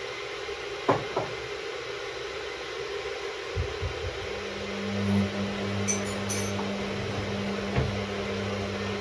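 Hoover Six AI130 washing machine running mid-wash on its Speed Wash programme: a steady hum with a few soft knocks, and a low, even drone that comes on about four seconds in.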